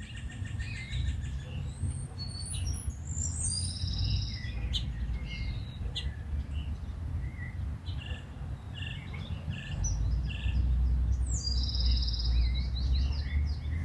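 Several wild birds chirping and calling in short, scattered notes and brief trills, over a steady low rumble that grows stronger about ten seconds in.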